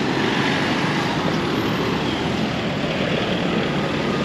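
Steady city road traffic: cars and a pickup truck driving past through a street intersection.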